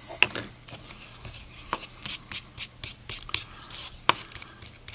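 Metal putty knife scraping and tapping on a melamine panel as it mixes seam-filler paste. Irregular small clicks and scrapes, with a few sharper taps, the loudest about four seconds in.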